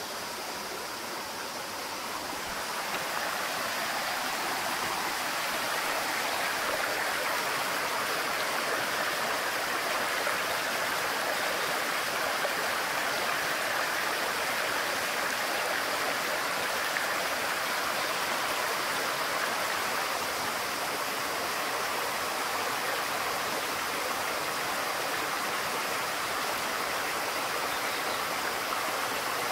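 Mountain stream rushing over rocks: a steady wash of running water that grows louder about two and a half seconds in.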